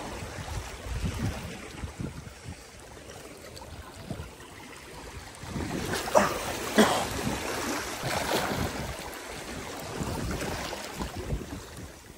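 Small waves washing against shoreline rocks, with wind rumbling on the microphone. Two brief, sharper splashes stand out about six and seven seconds in.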